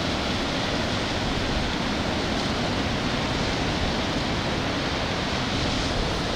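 Sea surf washing steadily against a rocky shore: an even, unbroken hiss of water.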